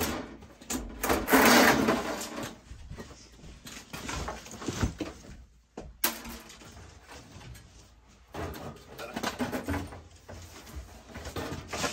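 Sheet metal of an old Lennox oil-fired furnace scraping and knocking as it is worked loose by hand: a loud scraping rasp about a second in, then scattered clanks and knocks.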